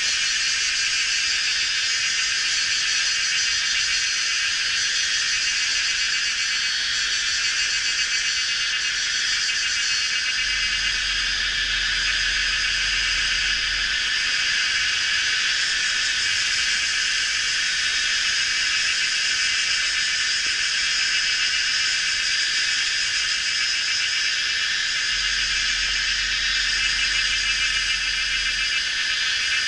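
Dense chorus of cicadas and other insects: a steady, high-pitched buzzing made of many overlapping calls that holds at an even level throughout.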